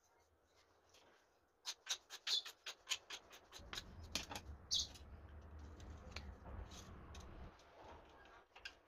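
A quick run of sharp light clicks, then a low rumble with a few more clicks, as small hard objects are handled. A bird chirps briefly once or twice.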